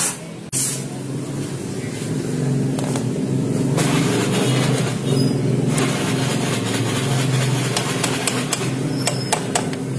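A small engine running steadily at an even speed, with a few sharp metallic taps near the end.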